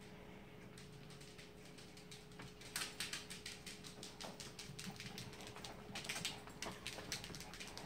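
Claws and paws of a small dog and a cat scampering on a tile floor as they chase each other: rapid, irregular clicking and pattering, busier from about three seconds in. A faint steady hum runs underneath.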